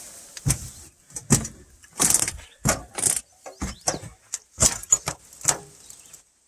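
Footsteps crunching over sticks and debris, about two steps a second in an uneven walking rhythm, each a short sharp crunch.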